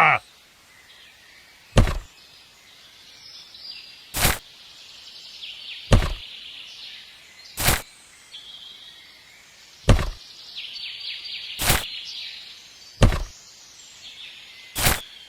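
Eight sharp knocks, about one every two seconds, over a quiet background with faint bird chirping.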